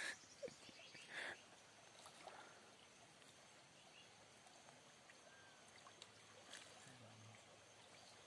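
Near silence: a faint, steady outdoor background, with one brief soft noise about a second in and a few tiny clicks.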